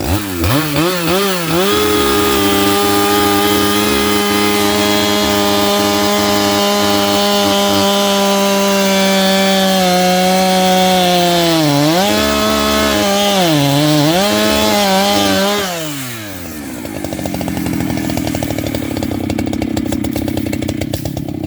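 Two-stroke chainsaw run at full throttle while cutting into a tree trunk, holding a steady high pitch. Its pitch sags and recovers a few times under load, then drops to idle for several seconds before revving up again near the end.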